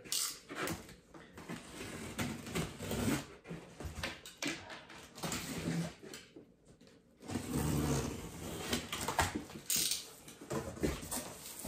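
Irregular clicks and scrapes of a utility knife being handled and worked against a cardboard box.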